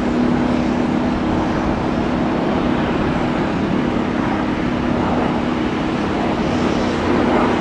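Steady aircraft engine noise: a continuous rushing sound with a low, even hum, no change in pitch.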